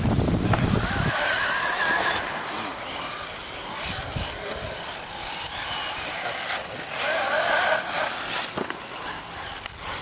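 Radio-controlled race cars' motors whining around a track, the pitch rising and falling as they speed up and slow down. A heavier rumble is heard in about the first second.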